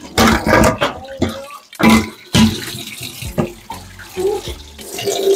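Water running and splashing in uneven surges, with scattered knocks.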